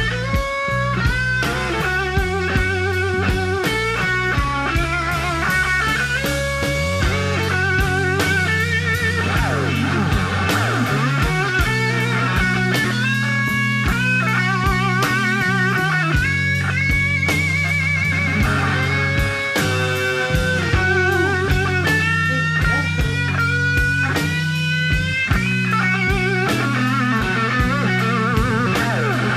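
Electric blues: a lead electric guitar plays wavering, vibrato-laden lines over a steady bass and drums.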